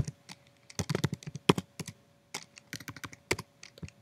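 Typing on a computer keyboard: a run of quick, irregular key clicks in small clusters.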